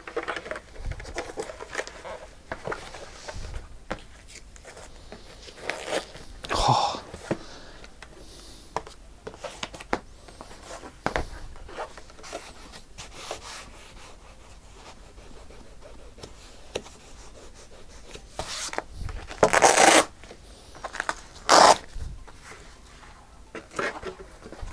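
Padded fabric wing bags being handled on a cutting mat: rubbing and rustling of fabric, with a few louder rasping bursts about six seconds in and twice near the end.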